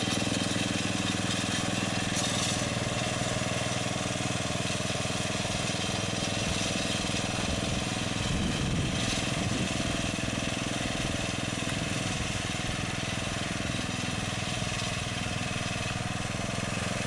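Small gasoline engine of a Janick walk-behind wire trencher running steadily.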